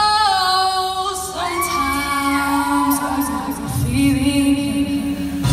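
A woman singing a soul ballad through a microphone and PA, opening on a long held note that wavers, then moving through sliding phrases. A sustained low accompaniment note joins about a second and a half in, and deep bass comes in about two-thirds of the way through as the backing music builds.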